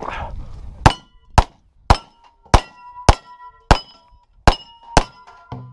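A string of about eight pistol shots, one every half to three-quarters of a second, each followed by the ring of a hit steel target.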